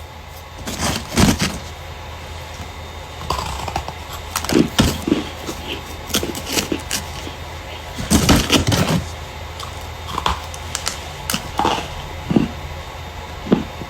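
Starch being crushed close to the microphone: a run of irregular crunches, some in quick clusters, over a faint steady hum.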